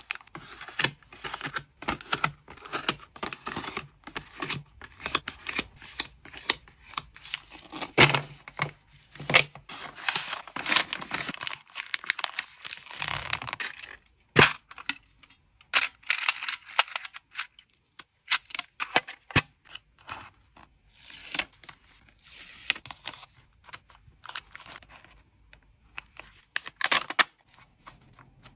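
Hands packing trading cards: plastic packaging and sleeves crinkling and tearing, with irregular taps and sharp clicks, in close-miked ASMR style.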